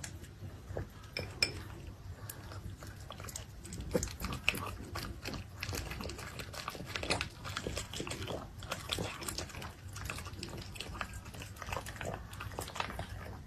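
A poodle eating noodles from a bowl: a steady run of quick, irregular wet smacks and chewing clicks as it bites and slurps at the food.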